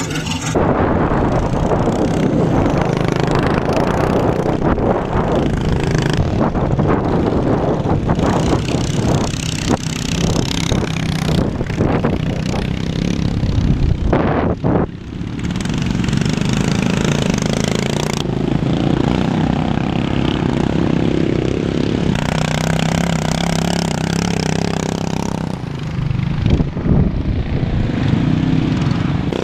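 A racing lawn mower's engine running hard, heard close up, with rattling and knocks as it bounces over a rough grass track. The engine note drops briefly about halfway through, then picks up again.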